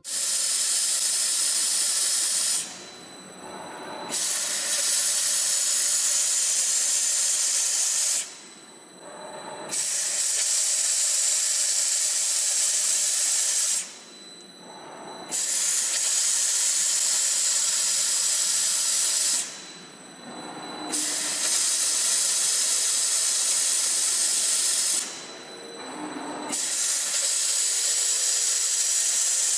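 Double-shaft automatic roll cutting machine slicing tape rolls in a repeating cycle: a loud, even hiss for about four seconds as the rotating blade cuts through the roll, then a quieter pause of about a second and a half before the next cut, six cuts in all. A thin steady high whine sits under the hiss.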